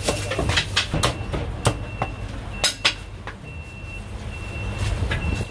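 Heavy steel cleaver chopping roast suckling pig on a thick wooden chopping block: several sharp chops at uneven intervals, with a lull in the middle. A steady low rumble, like street traffic, runs underneath.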